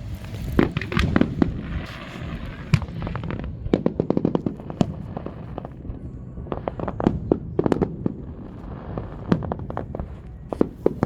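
Fireworks going off: rapid, irregular clusters of sharp bangs and pops.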